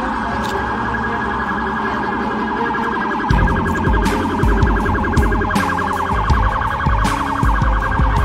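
A police siren sound effect with a fast warble, laid over background music whose drum beat comes in about three seconds in.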